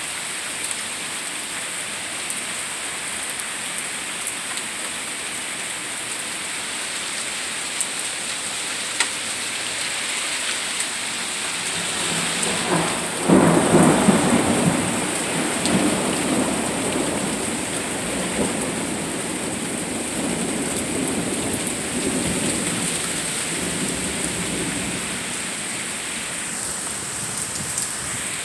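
Steady rain falling, with a long roll of thunder that breaks in about halfway, loudest at first and dying away over about ten seconds.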